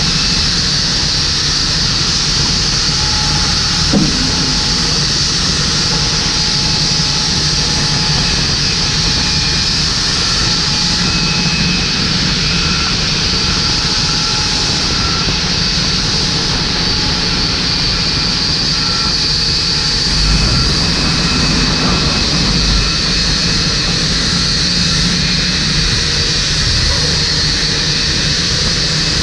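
Steady loud whine and rush of a Boeing 787-9's jet engines running at idle, with the towbarless pushback tug's engine running underneath. A single knock comes about 4 seconds in, and a deeper swell of engine noise about 20 seconds in.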